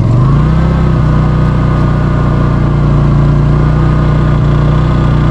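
Honda EU30i inverter generator's single-cylinder four-stroke engine running steadily on its first start, just after the pull start; its pitch rises slightly and settles in the first half-second.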